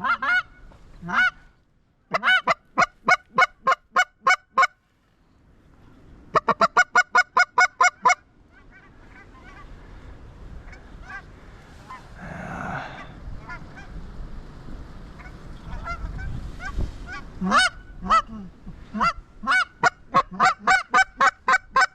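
Canada geese honking in three quick runs of loud, evenly spaced calls, about four or five honks a second, with a stretch of wind noise in between.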